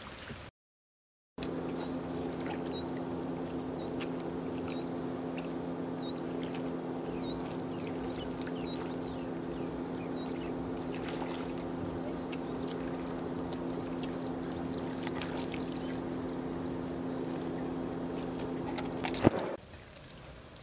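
A steady low motor drone made of several even tones, with faint high chirps about once a second above it. The drone starts after a brief dropout near the start and stops just after a sharp click near the end.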